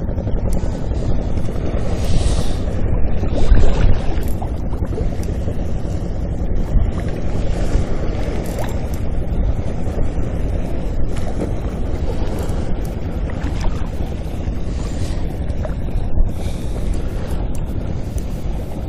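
Wind buffeting the microphone as a steady low rumble over the wash of sea waves, with a stronger gust about three to four seconds in.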